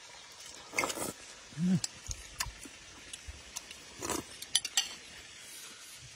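Eating sounds: a slurp from a spoon about a second in, a brief low hum, then a few light clinks of a spoon against ceramic bowls.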